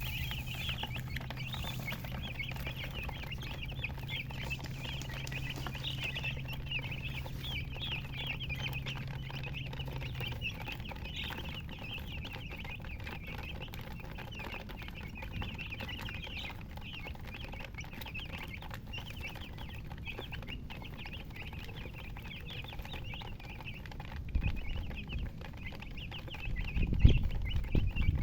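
A group of domestic chicks peeping continuously, many high chirps overlapping. A low steady hum runs underneath until about ten seconds in, and a few low thuds come near the end.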